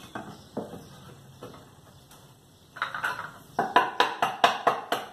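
A few soft knocks of wooden boards being handled, then, about two-thirds of the way in, a claw hammer starts striking pallet wood in a quick run of sharp blows, about four a second, knocking the cut bottom board down into place inside the frame.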